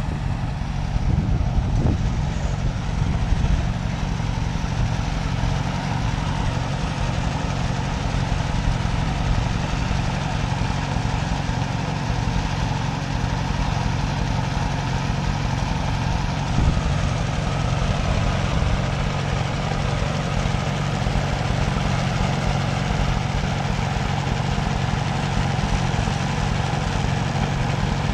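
Allis-Chalmers WD-45 tractor engine running steadily under load as it pulls a tandem disc harrow through plowed ground.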